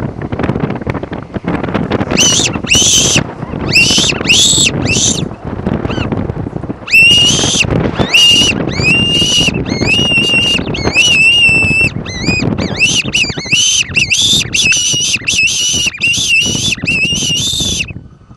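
Hand-blown fox whistle (predator call) squealing in a long series of short, high, wavering calls, blown close to the microphone as a lure call for the fox. The calls start about two seconds in, pause briefly, then run on rapidly until just before the end.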